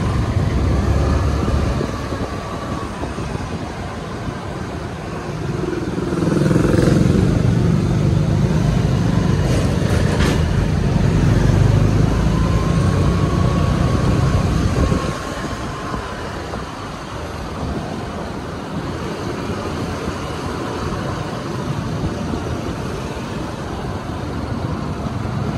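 Suzuki scooter riding in slow road traffic: engine and road noise with other vehicles close by, louder for several seconds in the middle. A couple of sharp clicks come about ten seconds in.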